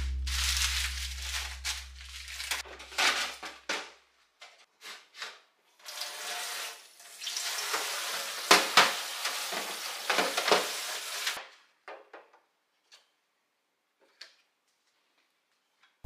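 Kitchen faucet running water onto a metal tray in a sink for about five seconds, after a few seconds of broken handling and rustling noises. A few light knocks follow near the end.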